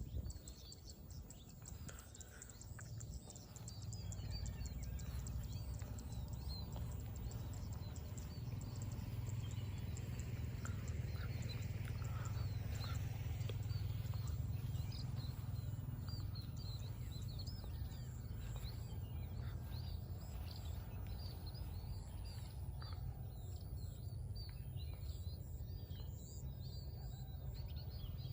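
Many small birds chirping in quick, short calls over a steady low rumble that comes in a few seconds in.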